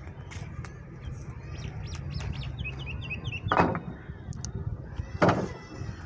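A small bird chirping a quick run of short notes a few seconds in, over a steady low rumble. Two sharp knocks, one about halfway through and one near the end, are the loudest sounds.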